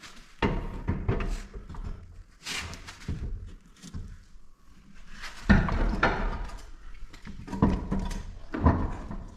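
A car wheel being lifted and worked onto the hub: a series of clunks and knocks with some scraping as the wheel bumps against the hub and studs while its holes are lined up, the loudest about five and a half seconds in.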